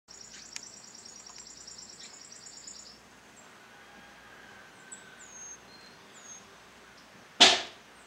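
A small songbird at its nest giving a rapid, high-pitched chattering trill for about three seconds, then a few thin, short descending calls. A sharp whoosh comes near the end.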